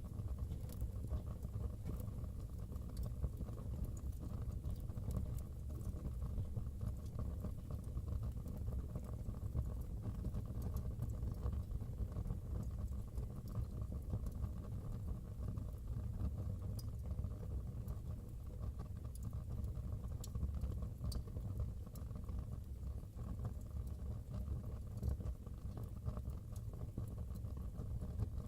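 Wood fire burning in a fireplace: a dense, steady low crackle with scattered sharp pops and snaps.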